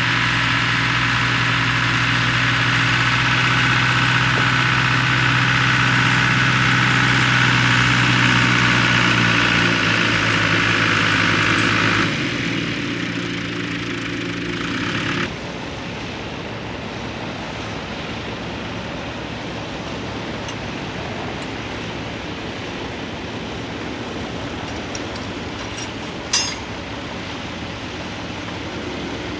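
John Deere tractor engine running steadily under load as it pulls a plow through the field. It cuts off abruptly about halfway through, leaving a quieter steady engine hum with one sharp click near the end.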